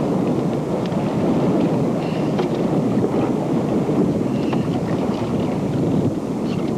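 Steady wind rumble buffeting a camcorder microphone on open water.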